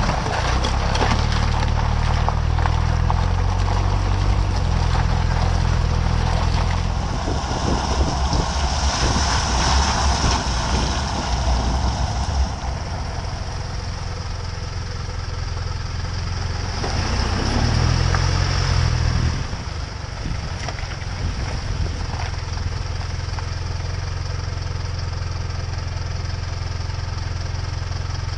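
Vehicle engine running, heard from under the car, while the all-terrain tyres crunch and hiss through slushy snow for roughly the first twelve seconds. The crunching then stops as the tyres roll onto wet and then dry pavement, the engine rising briefly about two-thirds of the way through before settling into a steady hum.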